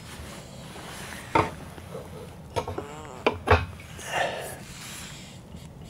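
Hard parts being handled and knocked together: a sharp knock about a second and a half in, two more around three and a half seconds, with a short wavering squeak and some rubbing between them.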